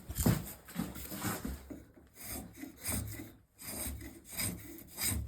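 Spokeshave cutting across a spruce stool leg in a run of short, rasping strokes, about two a second.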